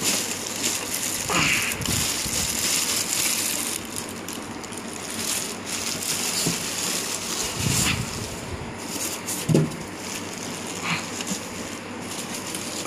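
Clear plastic bag and bubble wrap crinkling and rustling steadily as they are pulled off a new inkjet printer, with scattered sharper crackles.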